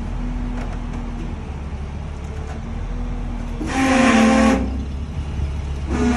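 Steady low engine hum. A loud horn sounds for about a second midway and again, longer, right at the end.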